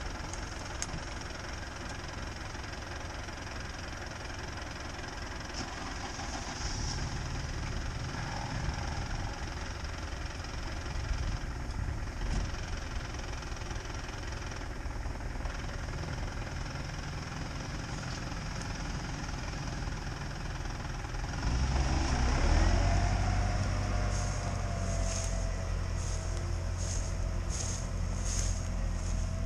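Belarus tractor's diesel engine and the stuck UAZ Patriot's engine running while the tractor tows the SUV out of deep mud ruts. About two-thirds of the way through, the engines rise under load and the vehicles pull away, then keep running louder and steadily.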